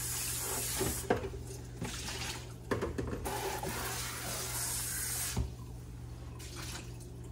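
Kitchen sink tap running with water splashing, in uneven spurts, as a container is rinsed out to clear away leftover seasoning. The flow eases off about five seconds in.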